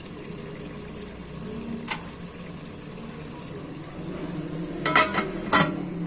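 Chicken karahi simmering in an aluminium pot with a steady soft sizzle, and one light click about two seconds in. Near the end, two sharp metallic clanks as the aluminium lid is set on the pot.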